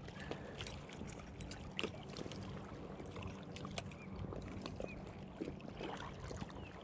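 Steady low wind rumble on the microphone, with faint scattered clicks and rustles as a small white bass on the line is handled and gripped for unhooking.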